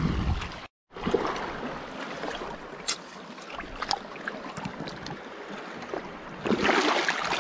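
Shallow seawater sloshing and trickling around feet wading over a rocky reef flat, with small clicks and knocks of rock and shell underfoot. The sound cuts out completely for a moment about a second in, and the water gets louder near the end.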